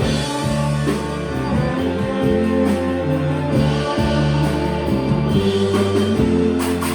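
Live rock band playing an instrumental passage between sung lines, guitar prominent.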